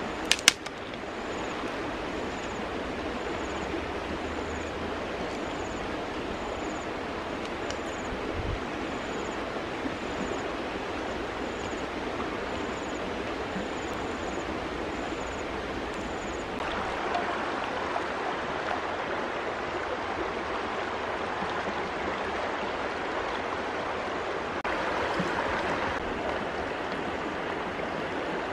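Steady rush of a fast-flowing stream, with a couple of sharp clicks just after the start.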